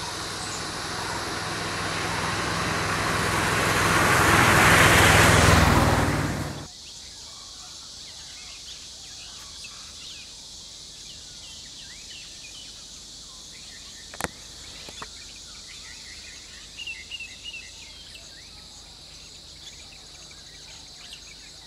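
Small van driving towards the camera, its engine and tyre noise growing louder for about five seconds and then cutting off abruptly. After that, a steady drone of insects, with two sharp clicks and a few bird chirps.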